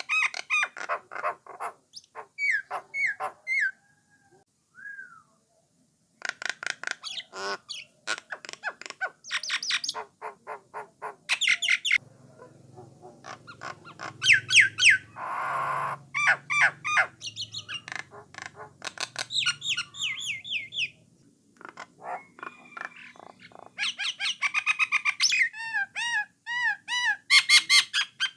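Jalak nias (brown starling) singing a long, varied song: runs of whistled and gliding notes, fast repeated chattering series and harsh squawks, broken by short pauses.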